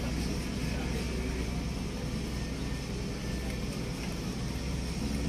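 Steady low machinery rumble with a constant hum.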